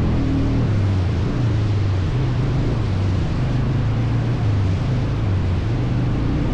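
ATV engine running steadily, its pitch shifting a little, with wind and rumble noise.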